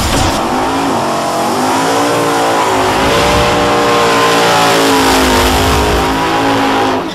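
High-revving race car engine, its pitch wavering up and down as it is revved, cutting off suddenly at the end.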